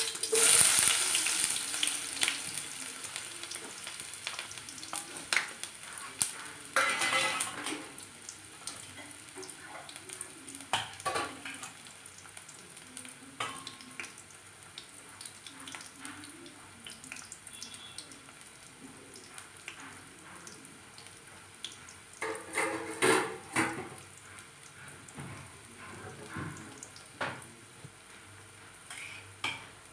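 Sliced onions dropped into hot oil in a non-stick wok, sizzling loudly at first and then frying on at a lower, steady sizzle. A few louder clatters break in about seven seconds in and again around twenty-three seconds.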